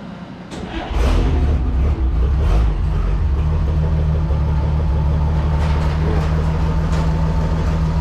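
A 1941 Chevrolet army wrecker's GMC 270 straight-six starts up about a second in. It runs a little harder for a moment, then settles into a steady idle.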